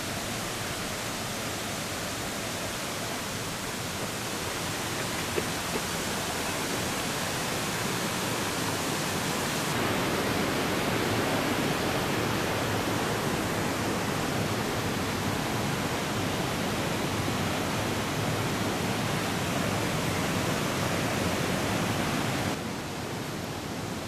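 Mountain river rushing over boulders below a suspension bridge, a steady rush of white water that grows louder partway through and drops suddenly near the end.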